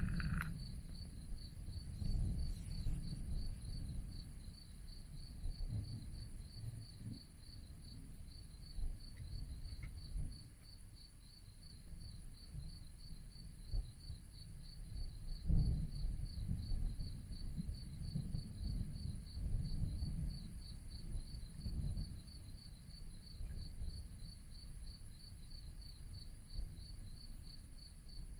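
Crickets chirping in a steady, rapid pulsing trill, over a louder low, uneven rumble that swells a couple of times.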